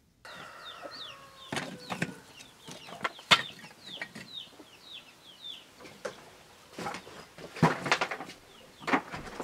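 Birds chirping in short, quick falling notes, several a second, with a few sharp knocks in between, the loudest about three seconds in and a cluster near the end.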